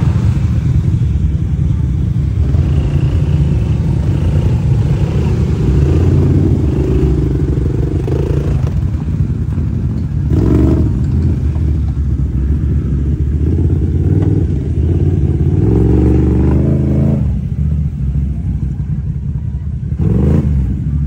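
Several ATV and side-by-side engines running at low speed through mud, their pitch rising and falling as the throttles are worked. There are stronger revs a few times, the longest building to a peak and dropping off about three-quarters of the way in.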